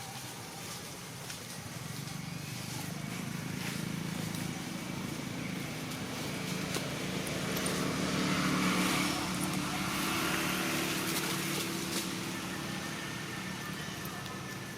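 A motor-vehicle engine running steadily, swelling a little about eight seconds in and easing off again.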